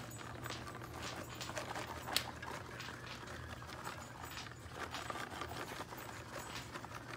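Shredded cheddar cheese shaken from a plastic bag onto a casserole in a glass baking dish: faint, irregular pattering and bag rustling, with one sharper click about two seconds in.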